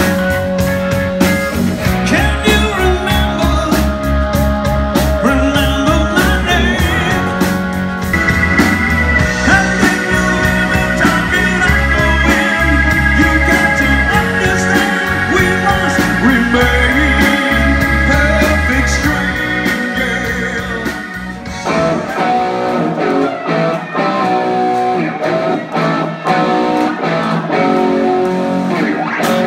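Live rock band playing loud with distorted electric guitar, bass and drums. About three-quarters of the way through, the bass and drums drop out and the electric guitar carries on alone.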